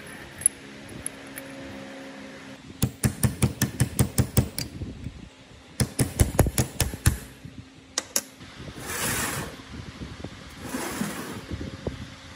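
A small hammer tapping rapidly on the metal bearing housing of a planer cutterhead shaft: a run of about ten sharp taps, a short pause, then about eight more and a single tap. Two short hissing swishes follow near the end.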